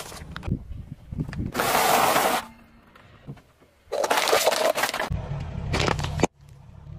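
Crunching and crackling of packaged items crushed under a car tyre on asphalt, in separate bursts: one loud crunch about two seconds in, then a longer crackle from about four seconds in, ending in a low rumble that cuts off suddenly.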